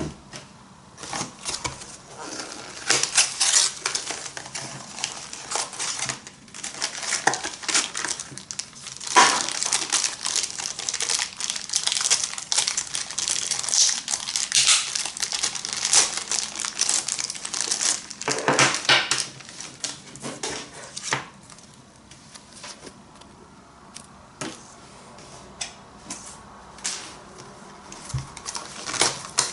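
Packaging being handled and opened: plastic or paper crinkling, with tearing sounds and irregular clicks, busiest through the middle and thinning out near the end.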